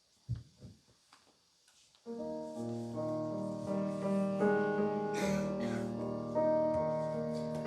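Keyboard starts playing a worship-song introduction about two seconds in: slow, held chords that change every second or so. Before it there are a soft thump and a few faint short sounds.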